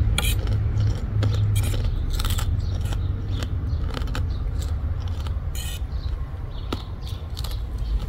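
A metal fork scraping and tapping against a plate as papaya salad is stirred and twirled, in a series of separate short scrapes and clicks with one longer scrape a little past the middle. A low steady rumble runs underneath.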